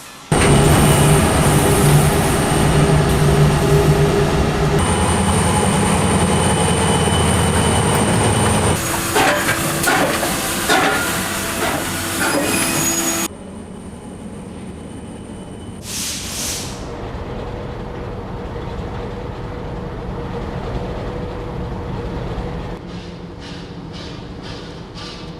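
Railway locomotive sound effects: a locomotive running loud and steady, with clicking from about 9 s. After about 13 s it drops to a quieter rolling sound, broken by a short burst of steam hiss about 16 s in and a few clicks near the end.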